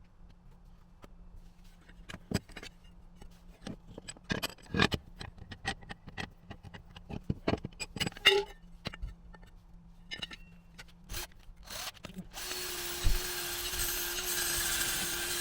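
Scattered clicks and knocks of tools and a metal panel being handled, over a faint steady hum. About twelve seconds in, guitar music starts.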